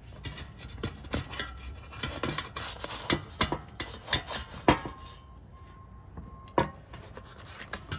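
A spatula scraping and tapping against the nonstick air fryer basket as it is worked under a cooked pita pizza to lift it out. The scrapes and clicks are irregular, with a few sharper knocks in the middle and second half.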